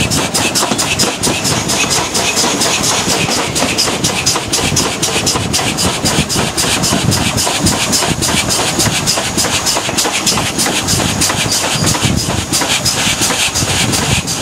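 GWR 52xx 2-8-0 tank steam locomotive running, heard close up from the footplate, with a rapid, even beat.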